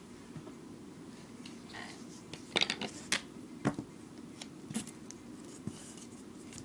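Duct tape being cut into small pieces and handled: a few short sharp snips and crackles, mostly between about two and a half and five seconds in, over a low steady background hum.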